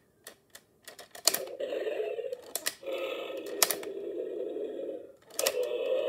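Large plastic Tyrannosaurus rex toy worked by hand: its jointed parts and mechanism give many sharp plastic clicks. Between them come stretches of a rough, steady sound lasting a second or two.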